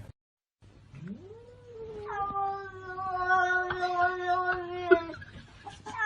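A cat yowling: one long, drawn-out call that rises in pitch about a second in and is held for about four seconds, then a second long yowl starting near the end. A few sharp clicks, one loud near the end of the first call.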